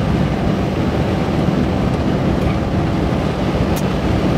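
Steady road and engine noise inside a moving car, with a constant low hum.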